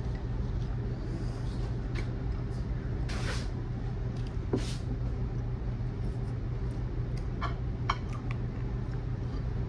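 Person eating a meal, with a few soft clicks of cutlery and mouth and two short breathy hisses about three and four and a half seconds in. A steady low background hum runs underneath.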